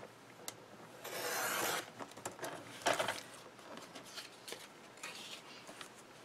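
Fiskars sliding paper trimmer cutting cardstock: the blade carriage is pushed along the rail in one steady stroke of just under a second. A louder brief scrape follows a second later, then light paper rustling and small ticks as the cut sheet is handled.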